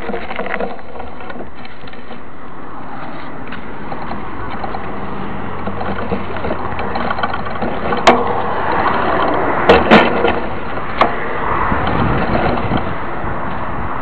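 Mountain bike rolling over a rough dirt trail: steady rushing tyre and wind noise, with a few sharp knocks and rattles as the bike and camera jolt over bumps past the middle.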